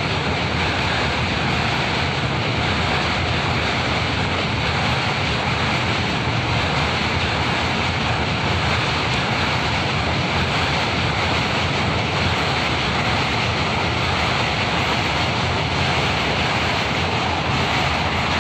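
Train running across a river bridge: a steady, unbroken rumble and rush, with wind noise mixed in.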